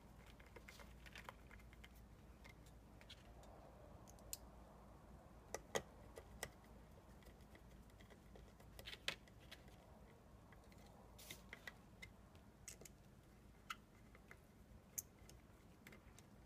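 Faint, scattered clicks and light ticks at irregular intervals, a few in quick pairs, from a screwdriver and screws being worked while a hard drive is fastened to a drive-mounting plate through rubber washers.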